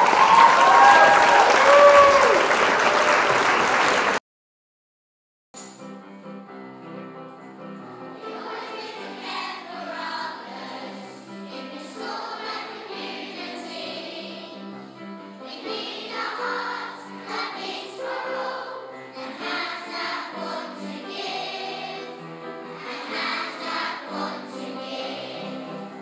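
A loud burst of cheering and applause with a few whoops, about four seconds long, cut off sharply. After a second of silence, background music with a choir singing.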